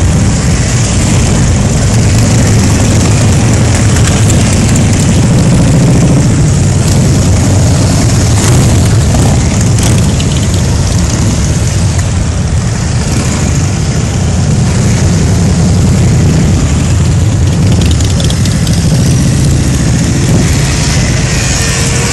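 A long line of motorcycles, mostly Harley-Davidson V-twins, riding slowly past. Their engines run loudly and steadily as one continuous low drone.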